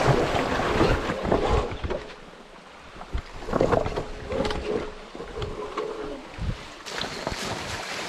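Electric dirt bike crossing a shallow rocky creek: water splashing and irregular knocks from the tyres on stones, with wind noise on the microphone.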